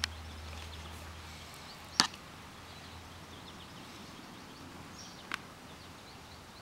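Three light, sharp taps, about two and three seconds apart, against a quiet background.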